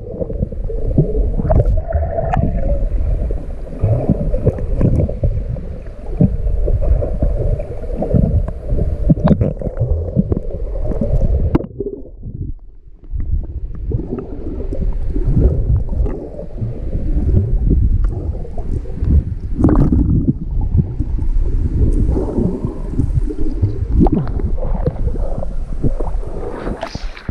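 River water heard from underwater: a muffled, low gurgling rush with many scattered knocks, dropping quieter for a moment about halfway through.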